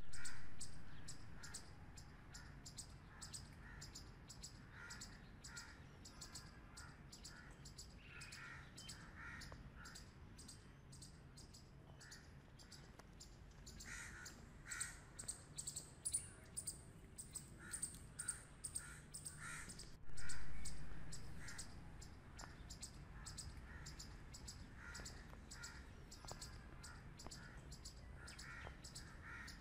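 Grey squirrels calling: short calls in quick runs of three to five, over a fast, even clicking that runs throughout. Twice, at the start and about twenty seconds in, a loud low thump fades away over a couple of seconds.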